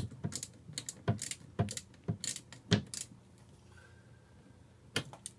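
Irregular metallic clicks and clinks of a socket wrench working loose the negative terminal of a boat's battery bank, in quick succession for about three seconds, then a pause and one more click near the end.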